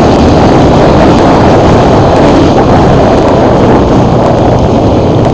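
Off-road motorcycle engine running at speed, loud and steady, mixed with wind buffeting the microphone.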